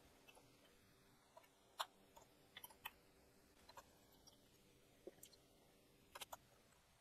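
Near silence broken by about six faint, short clicks from a computer keyboard and mouse as shortcut keys are pressed.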